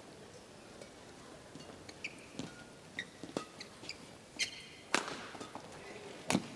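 Badminton rally: sharp racket strikes on the shuttlecock about a second apart, mixed with short squeaks of court shoes on the floor, over a faint hall hum.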